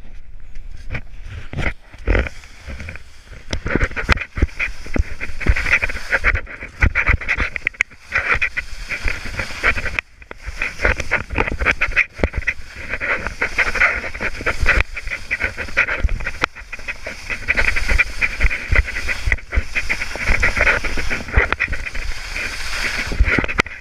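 Skis hissing and scraping over soft spring snow on a downhill run, with wind rumbling on the microphone and frequent knocks from bumps in the snow.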